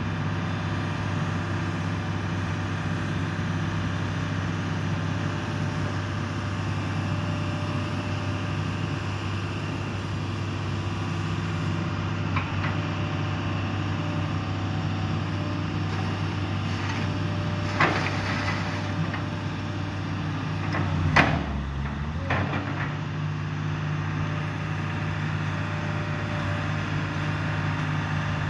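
Case CX210 excavator's diesel engine running steadily while the long-reach boom and bucket are worked. A few sharp knocks come from the moving arm and bucket: one a little before halfway, then two louder ones in the last third. The engine note sags briefly at the loudest one, as if under hydraulic load.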